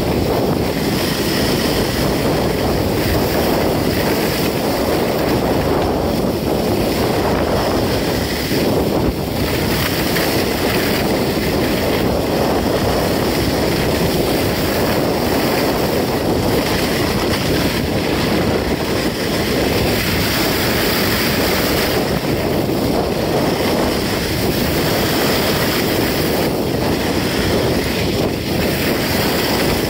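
Steady rush of wind buffeting the phone's microphone, mixed with the hiss and scrape of ski-bike skis over hard-packed snow during a downhill run.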